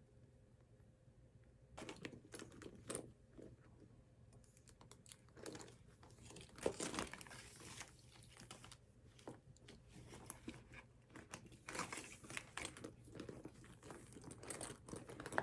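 Faint crinkling and rustling with small irregular taps and clicks, starting about two seconds in, as of something being handled at close range.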